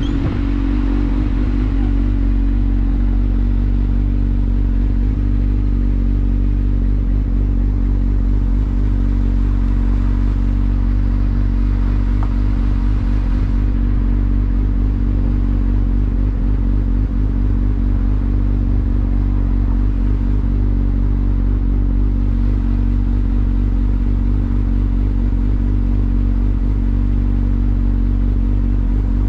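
Sportbike engine idling steadily while the bike stands still, an even low hum with no revving.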